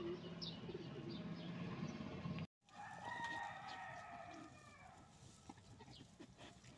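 A rooster crowing once in the background, a long call just after a brief dropout in the sound about two and a half seconds in. Before it there is a low steady hum with short chirps, and after it faint scattered chirps and clicks.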